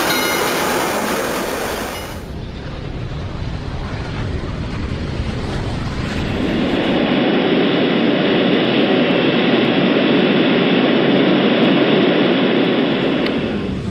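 Airplane in flight: a steady rushing engine drone that drops back about two seconds in and swells louder again about six seconds in.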